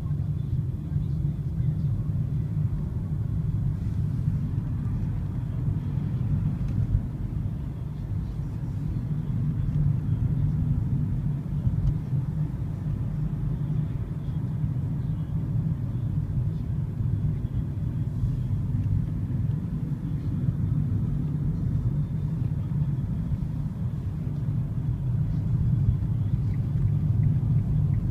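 Steady low rumble of a moving car's engine and tyres on the road, heard from inside the cabin.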